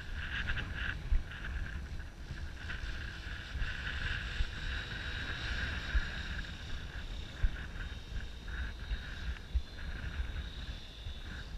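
Align T-Rex 700 Pro DFC electric RC helicopter in flight at a distance: the high hum of its electric motor and rotor, swelling and fading as it moves about. Wind rumbles and thumps on the microphone underneath.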